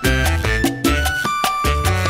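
Background music with a steady, quick beat and a prominent bass line.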